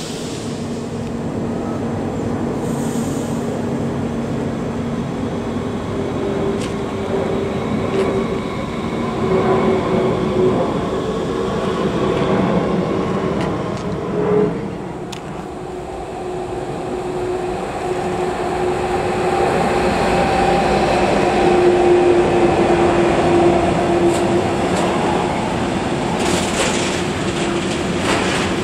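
Electric trains running through a station. First an S-Bahn electric multiple unit pulls away. After a cut about halfway through, a freight train of container and tank-container wagons approaches and rolls past, its steady hum and wheel-on-rail rumble growing louder toward the end.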